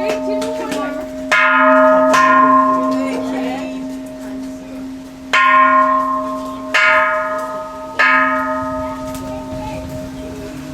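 Japanese temple bell (kansho) struck five times, the strokes a second or more apart, each ringing out and slowly fading, with the bell's low hum carrying on beneath.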